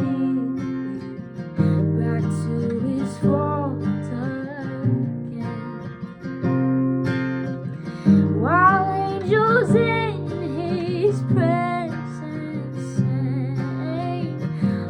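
Hymn sung over strummed acoustic guitar and sustained chords, the voice rising into a phrase about halfway through.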